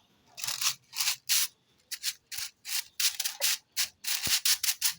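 Broom sweeping a floor in quick, uneven scratchy strokes, about three a second.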